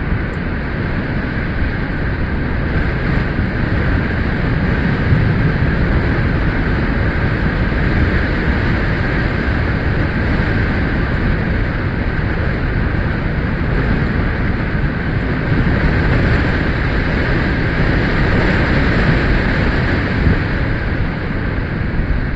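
Strong storm wind blowing steadily and rushing over the microphone.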